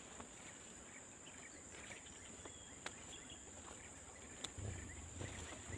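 Quiet, steady high-pitched drone of insects, crickets or cicadas, with a couple of faint ticks and a low rumble toward the end.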